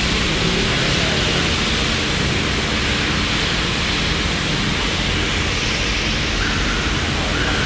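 Laser welding machine running with a steady rushing hiss.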